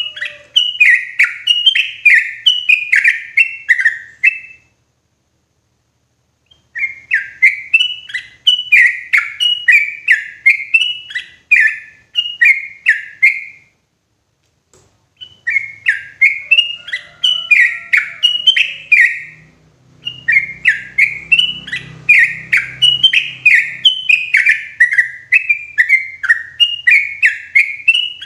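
Yellow-vented bulbul (trucukan) singing loud, clear phrases of rapid chirping notes, several seconds each, with short pauses between them.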